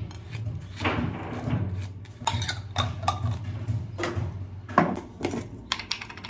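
Kitchen clatter while cooking: metal utensils knocking and clinking against a pan and dishes in an irregular string of sharp knocks, the loudest a little before five seconds in, over a steady low hum.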